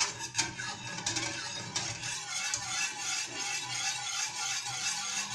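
Wire whisk beating a milky mixture in a stainless steel saucepan, its wires stirring through the liquid and scraping and clicking against the pan without a break.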